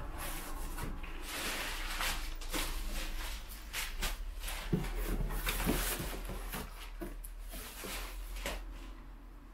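Brown packing paper and cardboard rustling and crinkling, with irregular crackles and handling knocks, as a plastic-wrapped exhaust test pipe is dug out of its box; the rustling dies down near the end.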